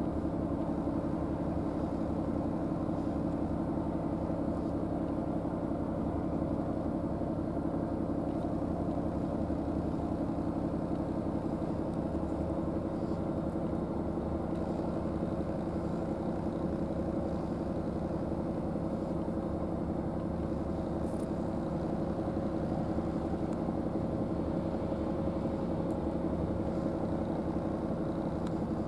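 An engine idling steadily: an even, unchanging hum at a fixed pitch that does not rise or fall.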